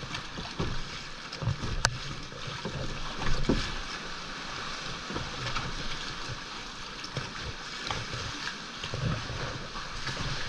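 Seawater sloshing and lapping against the rock walls of a sea cave and the kayak's hull, in irregular surges, with one sharp click just before two seconds in.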